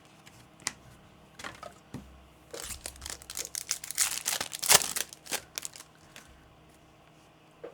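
Crinkling and crackling of a plastic trading-card pack wrapper being handled, with a few light clicks at first and a dense spell of crinkling in the middle.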